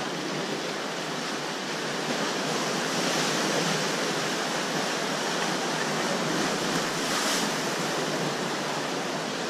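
Small sea waves washing and splashing around shoreline rocks, a steady rush of water, with one splash a little louder about seven seconds in.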